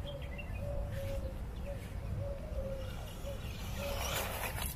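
Doves cooing in a steady repeated pattern over a low rumble of wind on the microphone, with a few high bird chirps at the start. About four seconds in comes a brief hiss as the small RC buggy runs through the grass close by.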